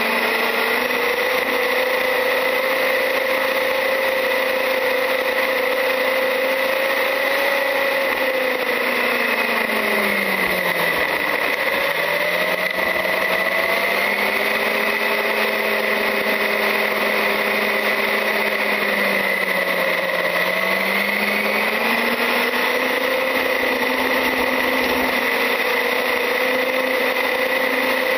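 Traxxas UDR radio-controlled truck's electric motor and drivetrain whining, heard close up from the truck itself, over steady tyre noise. The pitch falls twice, about a third and two thirds of the way through, as the truck slows, then rises again as it speeds back up.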